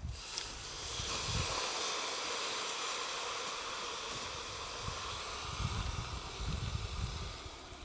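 Water poured onto hot stones hisses and sizzles into steam, starting suddenly and easing off near the end. Low thuds of the raw meat being handled come in the last couple of seconds.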